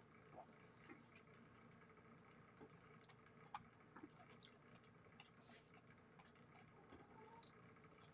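Near silence broken by faint, scattered light clicks of forks against plates and quiet eating sounds.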